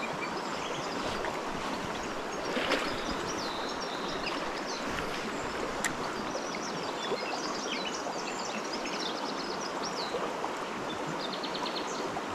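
A small river running high and fast after rain, its water rushing steadily. High chirps come and go over the rush throughout.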